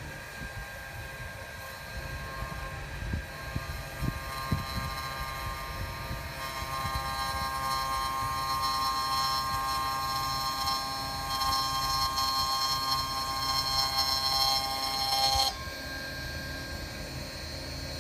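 Double-sided cashmere sewing machine running: a steady whine of several high tones over a low rumble, with a few knocks in the first five seconds. The whine grows fuller about six seconds in and cuts off suddenly a few seconds before the end, leaving the low rumble.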